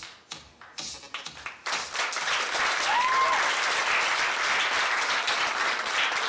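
Audience applauding loudly, starting about a second and a half in and going on steadily, with a short whistle about three seconds in. At the start, the last few beats of a music track.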